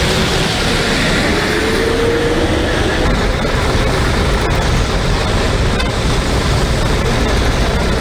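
Steady highway traffic noise from passing vehicles, with a short car-horn toot about two seconds in.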